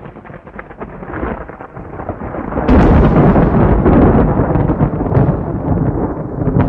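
A dense noise with many small crackles. About three seconds in, it jumps suddenly to a loud, low rumble that stays loud.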